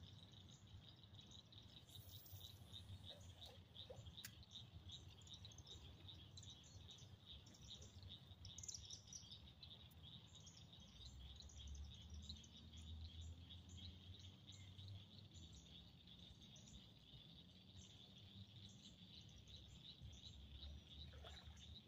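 Faint birds chirping over a steady, high, rapidly pulsing trill, with a single sharp click about four seconds in.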